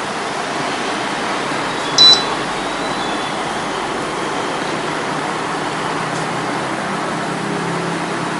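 A single short electronic beep from a foam density meter about two seconds in, over steady background noise.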